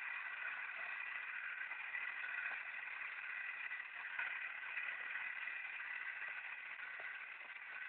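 Small battery-powered electric motor of a homemade cardboard toy tractor running steadily with a high whine as it pulls its trolley.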